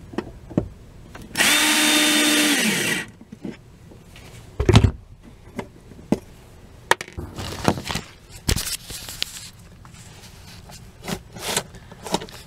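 Cordless drill driving a screw in one run of about a second and a half, its motor whine dropping as it stops. Scattered clicks and knocks of handling the screws and parts follow.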